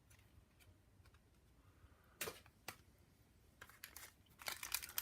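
Small sharp clicks and taps of trading cards being handled. Near the end comes a dense crackle of a foil card-pack wrapper beginning to crinkle.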